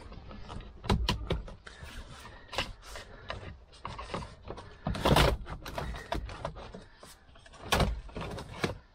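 Plastic clicks, scrapes and knocks as a plastic trim-removal tool pries a switch panel out of a car's center console. There are louder snaps about a second in, around five seconds in and near eight seconds.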